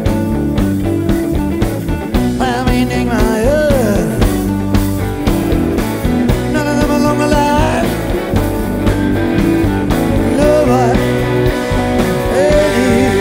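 Live electric rock band playing an instrumental jam, with lead guitar bending notes over steady drums, bass and rhythm guitar, heard through a soundboard recording.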